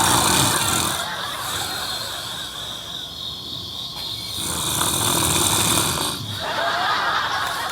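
A man snoring heavily in his sleep, long snores that swell and fade every few seconds.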